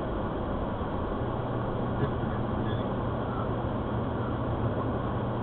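Steady road and engine noise inside a moving car, with a low, even hum.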